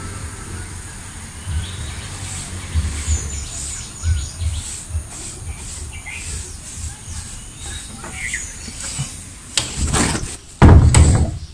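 Small birds chirping and tweeting over a low, uneven rumble. Near the end comes a loud rustling, scraping burst lasting about a second and a half.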